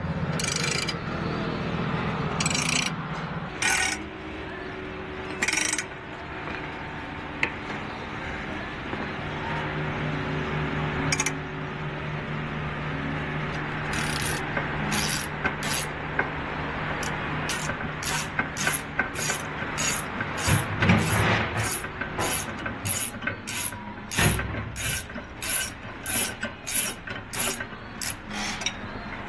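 Hand ratchet wrench clicking: a few scattered strokes at first, then, about halfway through, a steady run of about two clicks a second as a bolt is turned.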